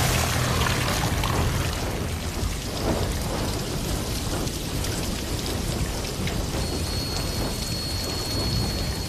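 Water pouring and splashing down onto debris like heavy rain, over a low rumble. A thin, steady high tone comes in about two-thirds of the way through.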